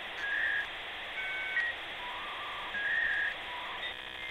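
Electronic intro sound effect under an animated logo: short beeping tones that jump between pitches over a steady hiss, turning into a buzzy tone near the end.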